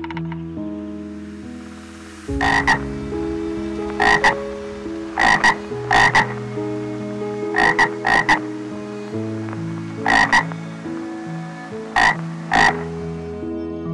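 Tree frog calling: short, sharp croaks, mostly in quick pairs, repeated every second or two from about two seconds in.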